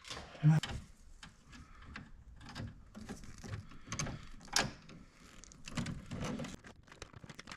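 Hands and tools working wire inside an electrical panel: irregular clicks, knocks and scrapes, with one sharp knock about half a second in.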